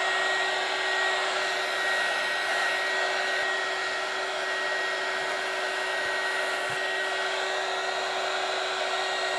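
Small handheld heat gun, the Shadow Foam hot foam finisher, running steadily, blowing hot air with a constant hum. It is being used to melt frayed, wispy edges of cut foam smooth.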